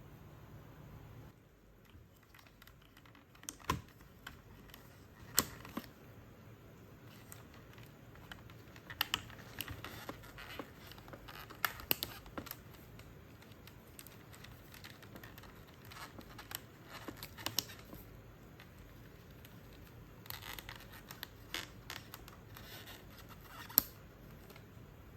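Hands working on the plastic body of a Vax Blade VX60 cordless stick vacuum for a battery replacement: scattered sharp plastic clicks and knocks, with bouts of scraping and rattling. The sharpest click comes near the end.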